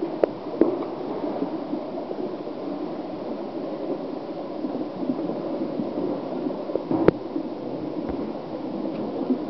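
Echoing indoor swimming-pool hall: a steady rumbling wash of water and room noise, with a few sharp knocks, the loudest about seven seconds in.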